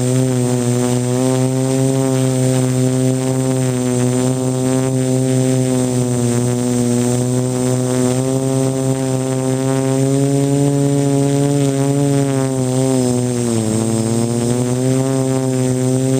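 Quadcopter's electric motors and propellers buzzing close to the microphone, one steady pitch that wavers slightly with the throttle and dips briefly late on.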